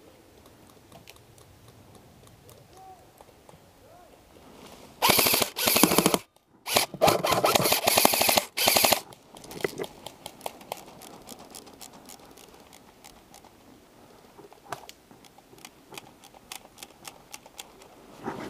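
Airsoft electric rifle firing several close, rapid full-auto bursts over about four seconds, a fast rattle of shots. Afterwards there are only scattered faint ticks.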